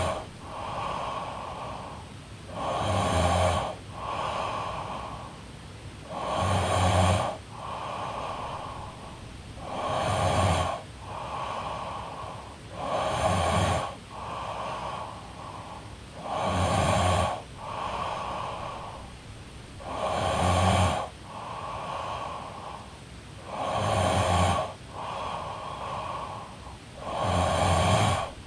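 A woman snoring in her sleep: a loud, buzzing snore about every three and a half seconds, each followed by a softer, breathy breath, in a steady rhythm.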